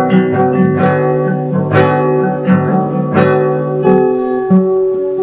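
Background music of strummed and plucked guitar, with a strum about every three-quarters of a second over held notes.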